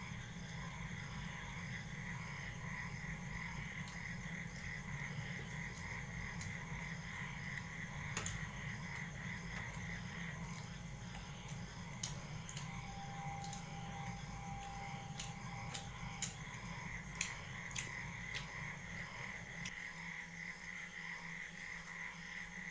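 People eating by hand from steel plates, with a few small sharp clicks and taps, over a steady low hum and a pulsing, chirring background chorus.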